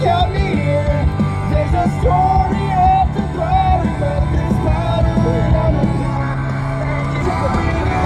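Loud music with a steady bass and a sung vocal line, with people singing and yelling along.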